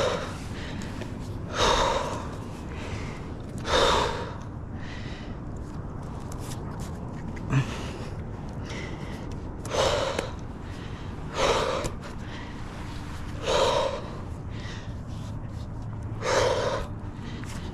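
A man's heavy, gasping breaths from exertion while working down a tree trunk: seven loud breaths, mostly about two seconds apart, with a pause of several seconds midway.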